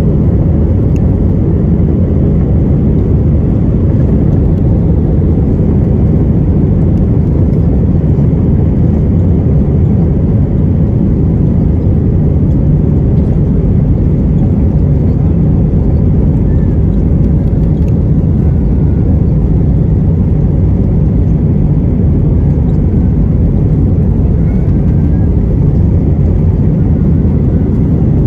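Airbus A320-200 cabin noise during the takeoff roll: the jet engines at takeoff thrust and the airframe rolling down the runway, a loud, steady, low rumbling noise heard from a seat over the wing.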